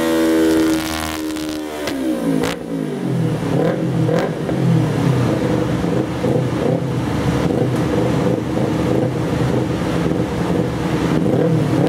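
Kawasaki Ninja 250's parallel-twin engine through a LeoVince SBK slip-on exhaust, dropping from high revs about two seconds in with a falling pitch, then settling into a steady low-rev run.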